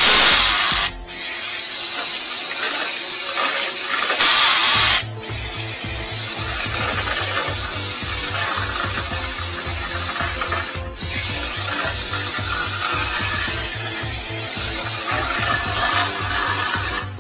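Flexible-shaft drain-cleaning machine running with a steady high whine, with a low rattling from the spinning shaft inside the drain pipe as it knocks off epoxy lining. The whine stops and restarts several times, and two short loud bursts of rushing noise come near the start and about four seconds in.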